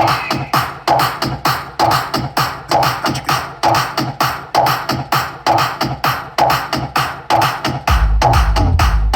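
Electronic dance music played loud through an RD44-series DJ sound system, with a rhythmic beat of about two pulses a second. Deep bass comes in about eight seconds in.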